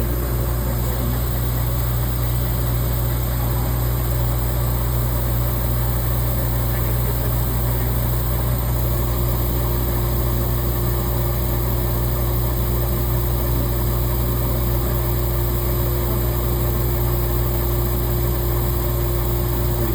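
Laser engraving machine at work, with its exhaust fan and air-assist pump running: a steady low drone with a constant hum tone.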